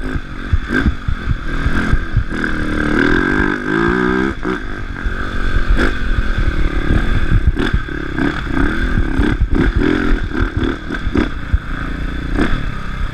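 Onboard sound of an enduro dirt bike's engine revving up and down with the throttle and gear changes while riding a rough dirt track, with repeated knocks and rattles over the bumps.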